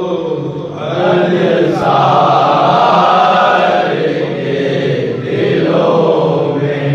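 Men's voices chanting a nauha, a Shia Urdu lament, in long drawn-out sung phrases with brief pauses between them.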